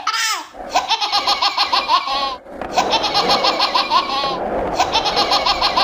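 Baby laughing in quick runs of rapid giggles, with a short break about two and a half seconds in.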